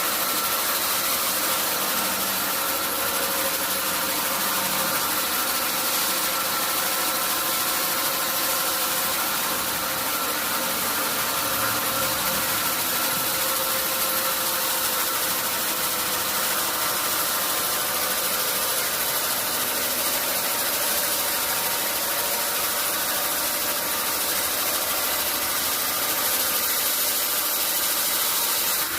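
Sawmill machinery running steadily, a constant engine-like hum with a hiss over it and no clear changes in load.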